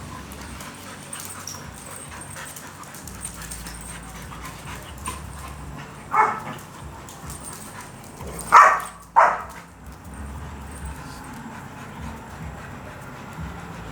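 Rottweiler giving three short barks while playing: one about six seconds in, then two close together around nine seconds.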